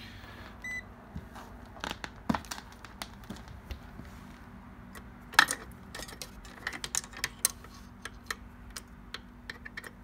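Multimeter test probes and leads being handled and tapped against a breaker panel's metal terminals and box, a string of light irregular clicks with one sharper click about halfway through. A short electronic beep sounds from the meter just under a second in.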